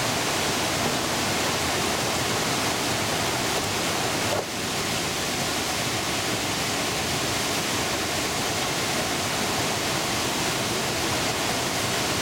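Steady rush of whitewater rapids pouring over the boulders of a canoe slalom course, with a brief small dip about four and a half seconds in.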